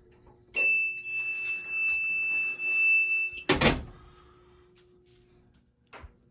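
A fire alarm control panel (Fire-Lite MS-5UD) sounds one steady high-pitched beep for about three seconds while the system is being reset. It is followed by a single loud clack, with a faint click near the end.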